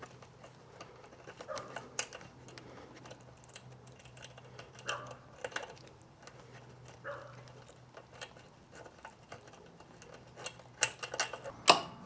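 Small metal parts clicking and clinking irregularly as a split key ring is worked onto a quick-release seat fastener, with a quicker cluster of louder clicks near the end.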